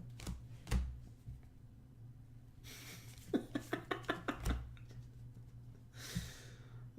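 Trading cards being handled: a few light clicks and rustles, then a quick run of about eight small clicks and snaps partway through, with a short rustle near the end.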